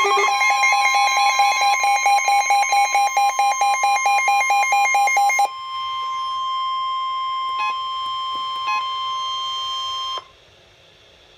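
NOAA Weather Radio's steady 1050 Hz warning alarm tone, with a receiver's alarm beeping rapidly over it for the first five and a half seconds. The beeping stops and the steady tone runs on alone until it cuts off about ten seconds in, leaving faint hiss. The tone signals an incoming severe weather warning.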